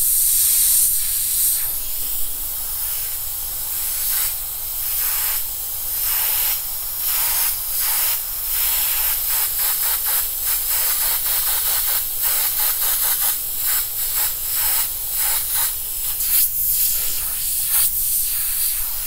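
Airbrush spraying paint, a loud hiss that comes and goes in short bursts.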